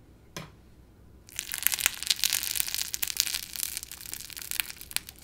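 Sweet toast sizzle crunch slime pressed and squeezed with the fingers in its jar, giving a dense run of crackling crunches from about a second in, with a single click just before.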